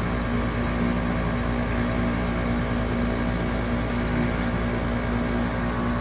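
Trane XR14 3.5-ton heat pump outdoor unit running through a defrost cycle: a steady compressor hum with a low, even drone.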